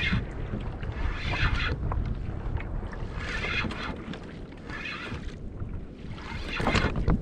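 Wind buffeting the microphone over a sit-on fishing kayak at sea, with water washing against the hull in repeated swells about every one and a half to two seconds.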